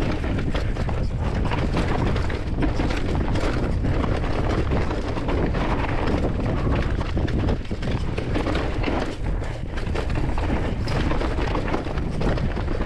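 Mountain bike riding down a steep, rocky technical trail: tyres crunching and scrabbling over loose rock, with a constant clatter of knocks and rattles from the bike over the rough ground.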